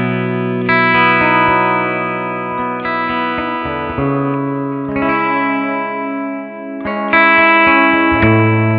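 Electric guitar, a Gibson SG '61 reissue, played through a New Vintage Amplifiers Ægean 20 combo with a Weber 12F150 speaker, its reverb at a medium setting. The tone is clean, with sustained chords that change every second or two and ring on between changes.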